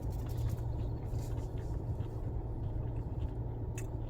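Steady low rumble of a car engine idling, with a few faint clicks.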